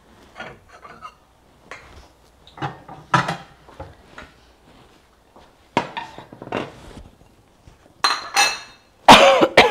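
Kitchen utensils and cookware being handled: a string of scattered clinks, knocks and scrapes of a spoon, pan and dishes. The loudest clatter comes near the end.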